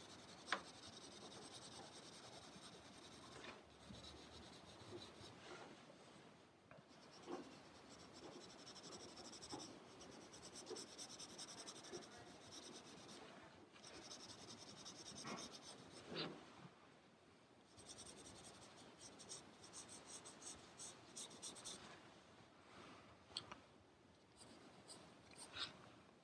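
Graphite pencil scratching on paper in many quick repeated strokes, shading in a drawn tree trunk. Faint, with louder stretches about ten and fifteen seconds in.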